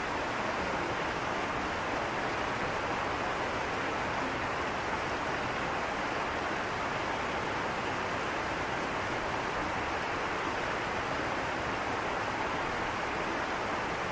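A rocky mountain stream rushing steadily, an even, unbroken sound of flowing water.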